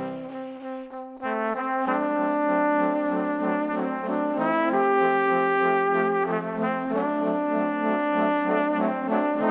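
Background music: long held notes over a steady low drone, with a short dip in level about a second in.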